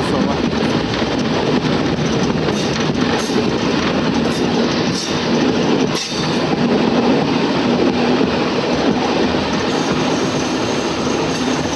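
Museum railway train running along the track, heard from on board: a steady rumble of wheels on rail with occasional sharp clicks as the wheels pass rail joints.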